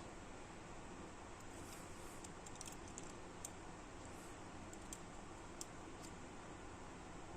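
Faint, scattered small clicks and taps, a few single ones a second or so apart, over a steady low hiss.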